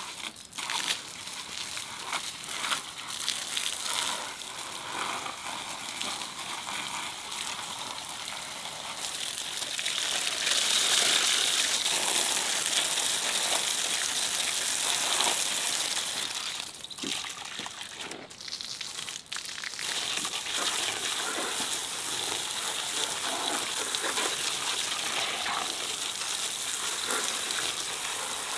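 Water from a garden hose spraying and splashing onto harvested vegetables in a plastic basket and a metal wheelbarrow. It is a steady rushing splash, loudest for several seconds about a third of the way in, with a short lull just past the middle.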